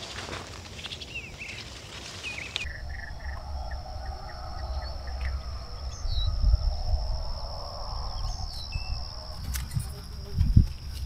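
Field ambience: birds chirping, then a steady high insect buzz with a low rumble underneath, and a thump near the end.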